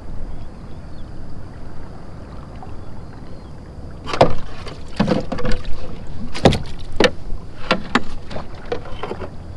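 Plastic pedal kayak on calm water: a low, even wash for the first few seconds, then from about four seconds in a string of irregular sharp knocks and clunks on the hull and gear.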